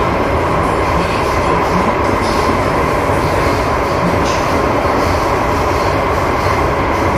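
Steady running noise heard from inside a C751B metro train car under way: wheels on rail with a steady hum held at one pitch throughout.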